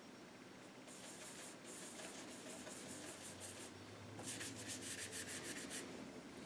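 Paintbrush strokes spreading acrylic paint, a soft brushing hiss. About four seconds in comes a quick run of short back-and-forth strokes.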